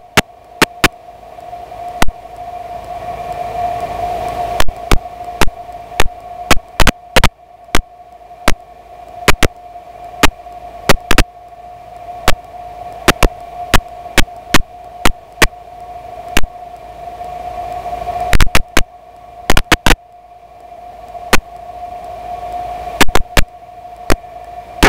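Cockpit intercom audio of a de Havilland Tiger Moth in a gentle descent with the engine throttled back slightly: a steady hum with one held tone that swells and dips slowly. It is broken all through by many loud, irregular clicks of electrical interference.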